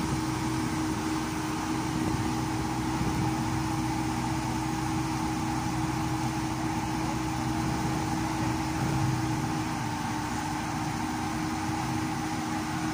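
Komatsu PC70-8 excavator's diesel engine running steadily at an even pitch while its arm and bucket are worked.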